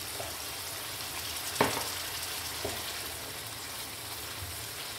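Chana dal in masala and water simmering and sizzling in a nonstick wok as a wooden spoon stirs it. The spoon knocks sharply against the pan about a second and a half in, with a couple of lighter taps.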